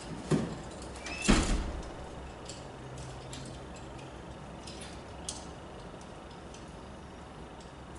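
A door thudding twice about a second apart, the second louder and ringing on briefly in the large hall; then a few faint clicks and rustles.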